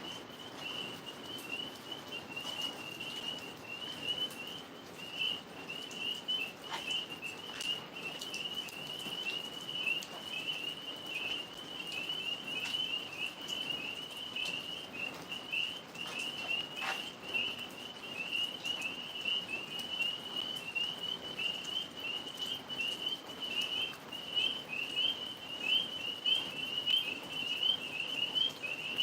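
Chorus of tree frogs calling: a dense, unbroken mass of rapid high chirps, all at much the same pitch.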